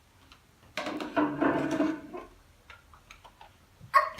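Plastic toy building blocks being handled, clattering for about a second, then a few sharp clicks near the end.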